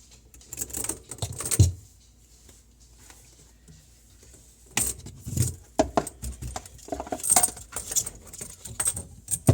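Metal tools and fittings clinking and rattling under the sink as the disposal's drain hoses are worked loose: a spell of clinks about a second in, a quiet gap, then a busier run of rattles and knocks from about five seconds on.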